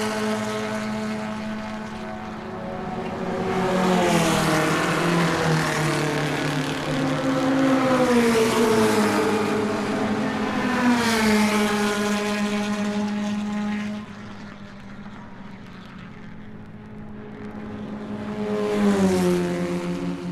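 Engines passing by several times, each pass swelling and then dropping in pitch over a steady engine drone. It goes quieter for a few seconds about two-thirds through, and another pass comes near the end.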